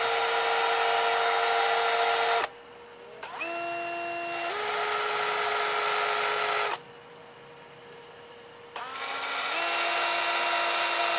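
Electric drill spinning a tungsten TIG electrode against a grinder to grind it to a point. The drill's motor whines with a grinding hiss in three runs of a few seconds, with short pauses between. The second run climbs in pitch partway through.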